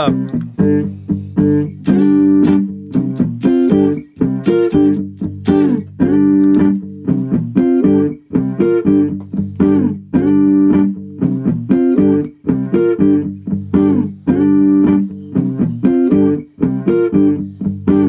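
Guitar loop playing back in a live-looping app: a short plucked guitar phrase repeating over and over, with more guitar overdubbed on top of it.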